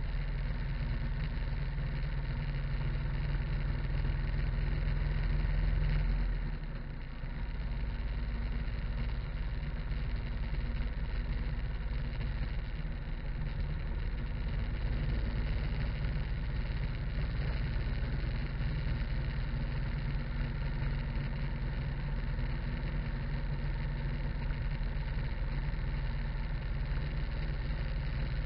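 Harley-Davidson V-twin motorcycle cruising on an open road, steady engine note mixed with wind and tyre noise. The level eases briefly about seven seconds in, then holds steady again.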